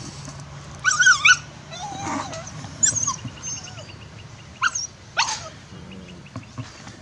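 Labradoodle puppies yipping and whining in play: short, high-pitched, wavering yelps, a loud one about a second in and more around three and five seconds.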